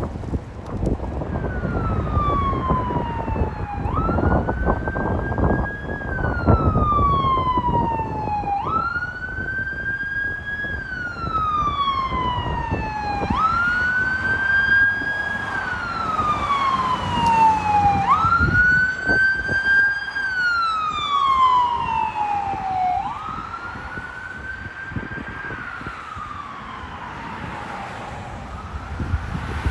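Fire apparatus siren on wail: each cycle jumps quickly up in pitch and then slides slowly down, repeating about every four and a half seconds, with traffic and wind noise underneath. The siren fades toward the end.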